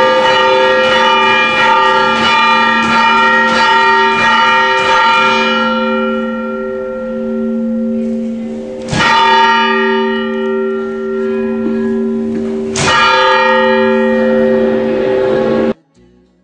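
Church bell rung by hand with a rope: struck quickly over and over for about five seconds, then left ringing and fading, then struck singly twice, about four seconds apart. The sound cuts off suddenly near the end.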